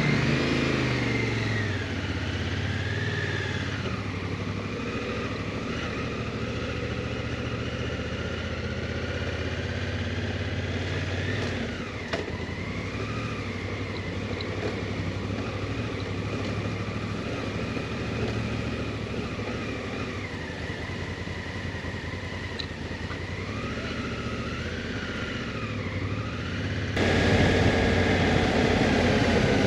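Motorcycle engine running under way, its pitch rising and falling with the throttle and gear changes. The sound jumps suddenly louder near the end.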